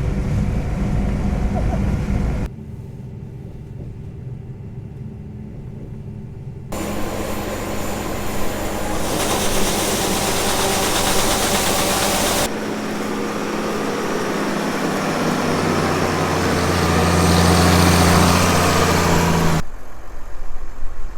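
Harvest machinery running, heard in a string of short clips that cut abruptly every few seconds, each with a different steady engine-and-machine noise; the last clip carries a strong low hum.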